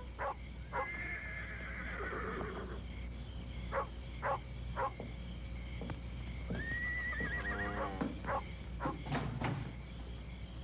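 A horse whinnying: two long, high, wavering calls that drop in pitch at the end, with several short calls between and after them.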